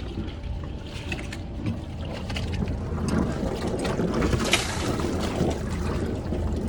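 Sailboat's inboard engine running at idle with a steady low hum, while its cooling water spurts out of the exhaust outlet at the stern and splashes into the sea, with scattered clicks.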